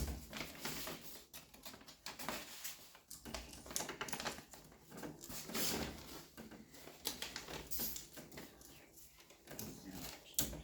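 Hand handling noise from electrical wiring work in a wall box: irregular clicks, taps and rustling as wires, wire nuts and the switch are handled.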